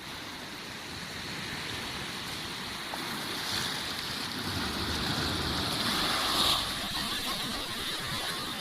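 Sea surf washing onto the shore, a steady wash that swells to a louder breaking wave about six and a half seconds in.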